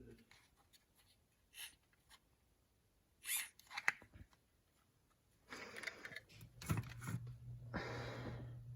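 A few short rustling and scraping handling noises with clicks, separated by quiet gaps; a steady low hum comes in about halfway through.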